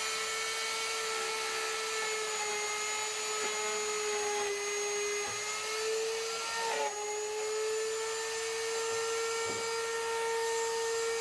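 Electric plunge router running at full speed with a steady high-pitched whine. Its pitch dips and wavers briefly about seven seconds in.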